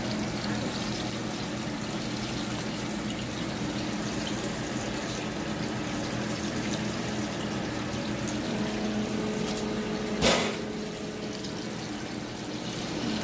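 Chicken wings deep-frying in a pot of hot oil, the oil bubbling and sizzling steadily. One sharp knock comes about ten seconds in.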